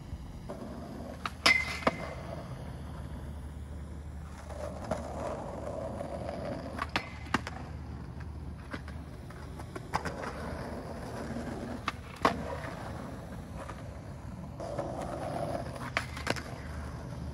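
Skateboard wheels rolling on concrete, with several sharp clacks of the board and trucks hitting the ground or the portable metal rail, the loudest about a second and a half in and again near 12 seconds.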